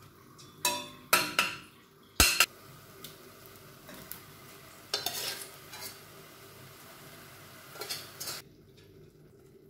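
A metal spoon knocking and scraping against stainless steel pots as cooked chicken curry is spooned into a pot: four sharp clanks in the first couple of seconds, then softer scrapes.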